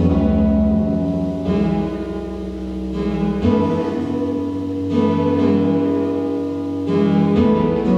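Electronic music played live on synthesizers: layered sustained tones over a deep bass drone, with the lowest bass dropping out about halfway through and returning near the end.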